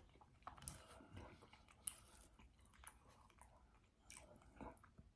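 Faint chewing of food close to the microphone, with scattered soft mouth clicks and smacks.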